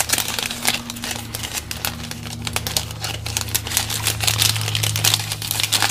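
Foil trading-card pack wrapper crinkling and crackling in the hands while paper cards slide and shuffle against each other, a dense patter of quick ticks. A steady low hum runs underneath.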